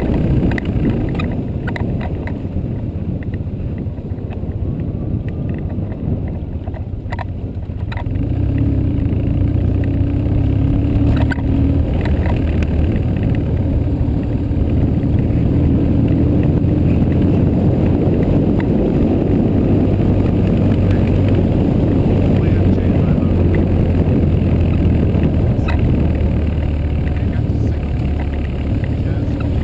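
BMW R1100GS boxer-twin engine running under way, with wind rushing over the microphone; the engine note grows louder and steadier about eight seconds in. A few light clicks come through now and then.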